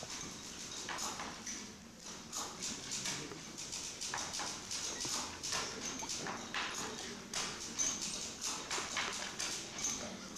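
A run of irregular clacks and knocks, a few each second, with no clear rhythm.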